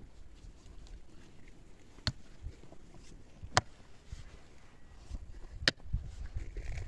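Pickaxe striking stony earth while digging a pit: four sharp chops about one and a half to two seconds apart, with soil and stones scraping and rustling between strikes.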